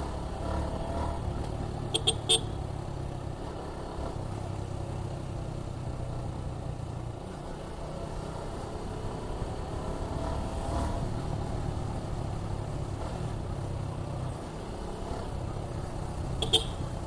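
Suzuki Gixxer 155's single-cylinder engine running at a steady cruise, with two quick horn toots about two seconds in and one more short toot near the end.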